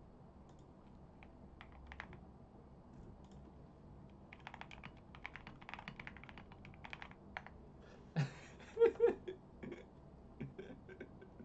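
Computer keyboard typing: quiet runs of clicks, thickest from about four to seven and a half seconds in, with a few more near the end. A brief vocal sound about eight seconds in is the loudest moment.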